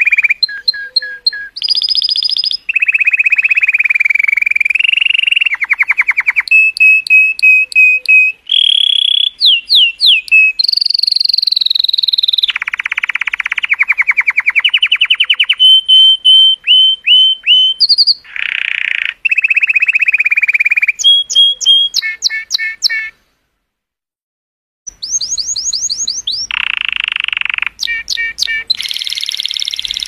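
Male colour canary singing its long song: rapid trills and rolls alternating with clear whistled notes and buzzy rattles, the phrase changing every second or two. The song stops dead for about two seconds some way past the middle, then starts again.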